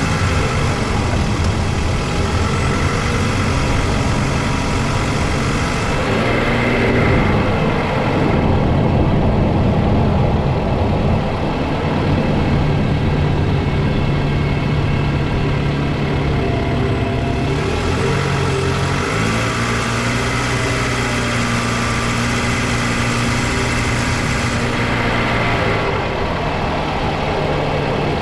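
Toyota Vanguard's 2AZ-FE 2.4-litre four-cylinder petrol engine running steadily, its low hum stepping to a slightly different pitch a couple of times.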